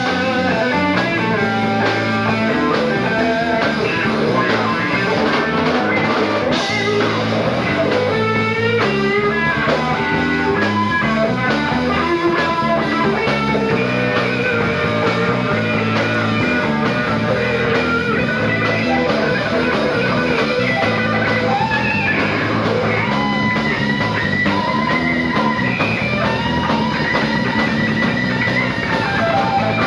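A live rock band playing an instrumental passage: electric guitar playing bending lead lines over a drum kit.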